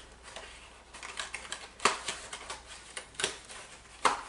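Clicks and light knocks of a phone's retail box and its contents being handled and sorted through, with a few sharper knocks about two, three and four seconds in.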